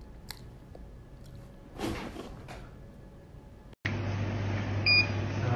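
Quiet room sound with a few faint soft noises, then a low steady hum and one short, high beep from a handheld infrared forehead thermometer.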